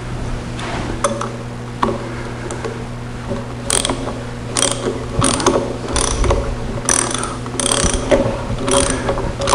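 Hand ratchet wrench clicking in repeated strokes as a square drive in the disintegrated hole backs out a 3/4-inch bolt. The bursts start about a third of the way in and come about once every three-quarters of a second, over a steady low hum.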